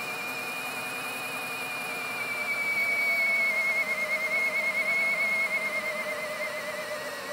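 CAT DX13 cordless drill in drill mode running against a hydraulic dyno's load: a steady high motor and gearbox whine that slowly falls in pitch as the rising torque drags its speed down. It grows louder about two and a half seconds in.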